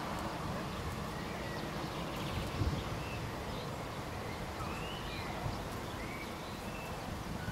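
Distant low rumble of an approaching Class 37 diesel locomotive's English Electric 12CSVT V12 engine, with a brief low bump about two and a half seconds in. Birds chirp over it in short high calls.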